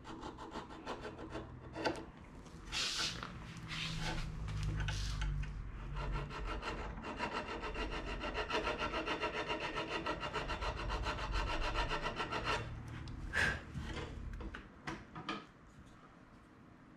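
Hand file scraping along the edge of a small aluminium part in repeated strokes, shaping and smoothing the metal. There is a quick, even run of strokes in the middle and a sharper scrape near the end.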